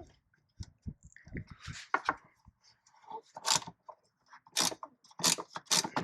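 Scattered clicks, short scrapes and rattles of hand tools and metal parts being handled under the hood, with several sharper scrapes in the second half.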